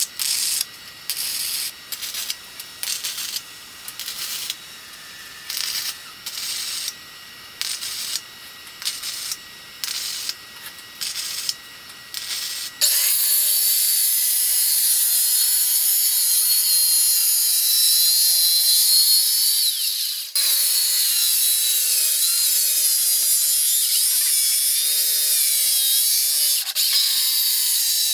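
MIG welder laying short stitch welds on a steel frame: crackling buzz bursts about once a second. About 13 seconds in it gives way to a handheld circular saw cutting plywood, its motor running steadily under load with a wavering whine.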